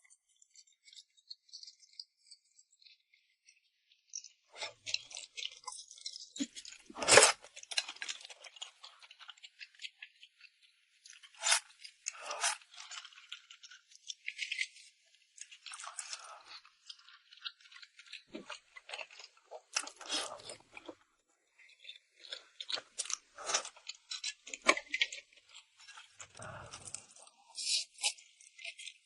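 Close-miked eating sounds of red-oil mixed rice noodles: irregular wet chewing and crisp smacking clicks. They start about four seconds in, after a quiet opening, and the sharpest smack comes around seven seconds in.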